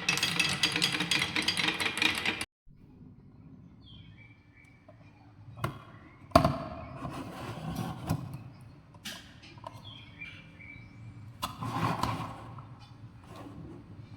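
A loud, dense sound for the first two and a half seconds that cuts off suddenly. Then quiet outdoor ambience with faint bird chirps and a few sharp clicks and knocks of food packaging and containers being handled, the loudest at about six and a half and twelve seconds in.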